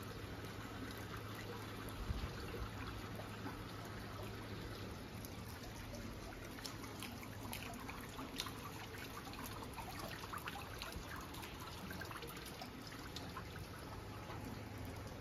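Water dripping and trickling during a wet snowfall, with many small scattered taps, over a steady low hum. There is a slightly louder knock about two seconds in.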